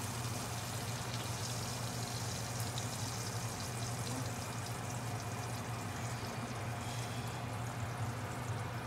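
Butter and steak juices sizzling steadily in a cast-iron skillet, over a low steady hum.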